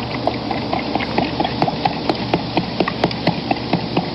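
Rhythmic clip-clop knocks, like hooves, about four a second, over a steady low hum.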